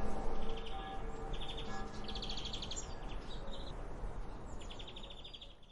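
A bell's chime dies away while small songbirds sing several short, rapid trills; the whole recording fades out near the end.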